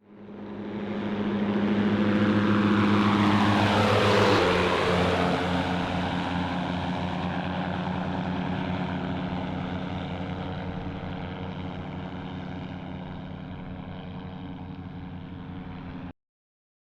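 Microlight aircraft's propeller engine flying past: it grows louder, its pitch drops as it passes about four seconds in, then it fades away and cuts off suddenly near the end.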